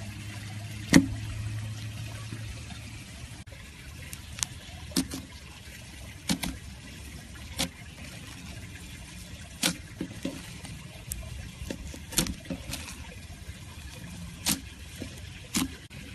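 Slime being squished and handled, with about a dozen sharp, irregularly spaced wet pops and clicks.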